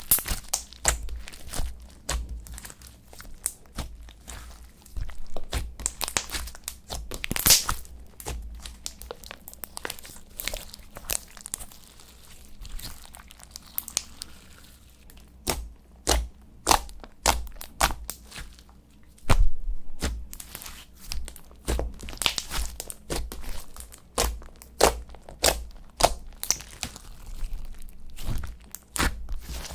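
Slime being kneaded and mixed by hand, making a dense, irregular run of sticky crackles, clicks and pops, with the loudest pop about two-thirds of the way through.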